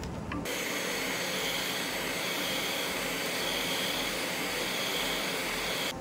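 Electric heat gun blowing hot air, a steady rush that comes on suddenly about half a second in and cuts off just before the end. It is softening cured epoxy resin drips on wood so they can be chiselled off.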